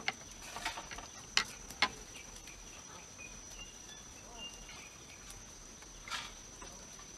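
Steady high-pitched trill of crickets, with a few sharp clicks and taps from a spoon and metal dishes, two in quick succession about a second and a half in and another past six seconds.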